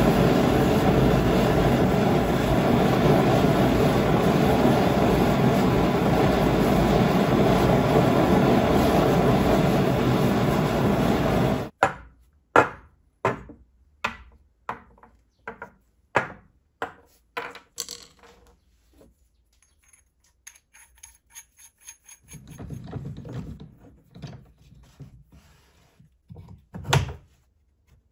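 Homemade Frosty T propane venturi burner running with a steady, loud rushing noise from the burning gas jet, cut off suddenly about twelve seconds in. After that, about a dozen separate sharp knocks as black iron pipe fittings and small parts are set down on a wooden workbench, and one more knock near the end.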